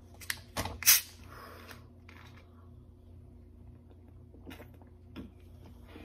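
Cap of a plastic Coca-Cola bottle twisted open: a few clicks as the seal breaks, then a sharp hiss of escaping carbonation about a second in. A few seconds later come faint sounds of drinking from the bottle.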